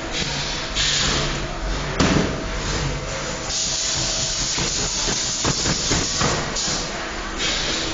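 Bookbinding workshop noise: several bursts of hissing over a steady low rumble, with a run of light knocks and taps about five to six seconds in as hardcover books are handled and stacked.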